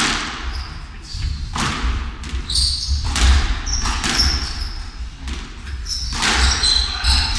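A squash rally: the ball is struck by racquets and smacks off the court walls every second or two, each hit ringing in the hall. Between hits come short high squeaks, typical of court shoes on a wooden floor.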